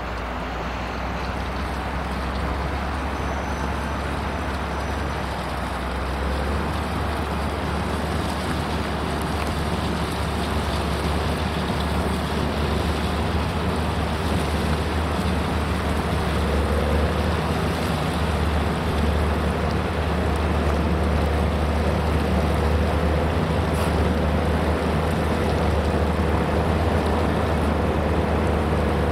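Caterpillar 160M motor grader's diesel engine running steadily as the grader pushes gravel with its blade. The sound grows gradually louder as the machine comes closer.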